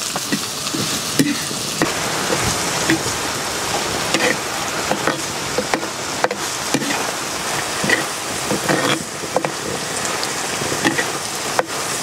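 Chopped onions and green chillies sizzling in hot oil in a black earthen pot, stirred with a perforated metal spatula that scrapes and clicks against the pot many times.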